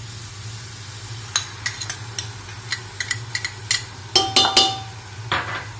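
A metal spoon clicking and tapping against a steel pot and bowl as curd is spooned into the frying chicken, with a few louder ringing clinks about four seconds in and a short scrape near the end. A steady low hum runs underneath.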